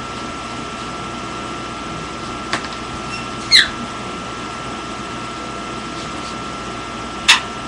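Quaker parrot (monk parakeet) giving two short, sharp, loud squawks, one about halfway through and one near the end, over a faint steady high-pitched hum.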